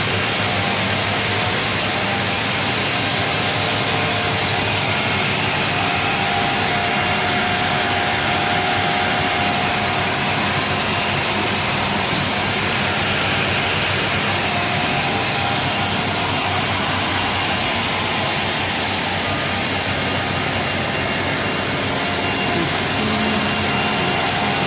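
C.R. Onsrud 381G18CD CNC router running: a loud, steady machine noise with a rush of air and a few faint steady whining tones over it.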